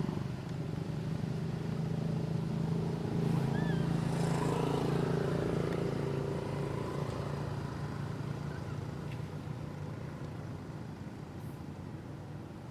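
A motor vehicle's engine humming steadily, loudest a few seconds in and then slowly fading away, with a brief high chirp about three seconds in.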